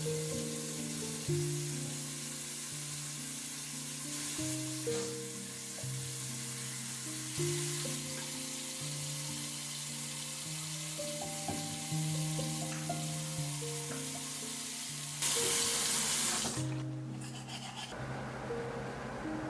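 Instrumental background music moving through slow, steady notes, over a continuous hiss. The hiss grows louder in a burst of about a second and a half near the end.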